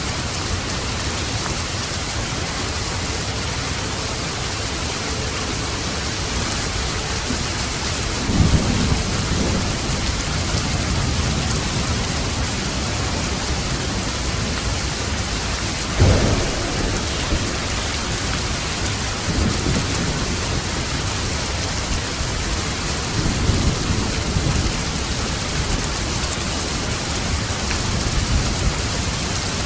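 Steady heavy rain hissing, with several low rolls of thunder rumbling through it, the sharpest and loudest about halfway through.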